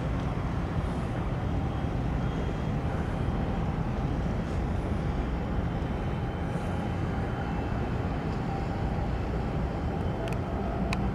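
Steady low rumble and hiss of harbour ambience, with a couple of faint clicks near the end.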